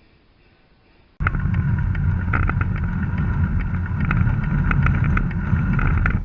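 Garden-scale model train running close by: a low rumble with a steady motor whine and scattered clicks from the wheels on the track, starting abruptly about a second in and stopping just before the end.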